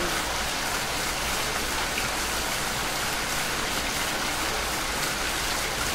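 Steady rain falling, an even wash of drops that holds the same level throughout.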